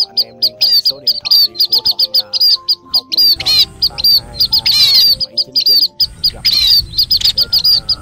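A flock of munias calling: rapid, high, repeated chirps, several birds overlapping without a break. Soft background music with held notes runs underneath.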